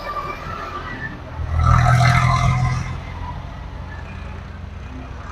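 Diesel engine of a Volvo 210D excavator running steadily. It rises in level about a second and a half in and holds there for about a second and a half, then drops back.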